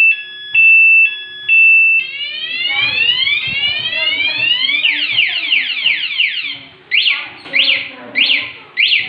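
Motorcycle anti-theft alarm siren sounding after the armed Yamaha XTZ 125 was moved. It starts with a two-tone beep switching between a high and a low pitch about every half second. It then cycles into a fast run of rising sweeps and ends with four separate rising whoops.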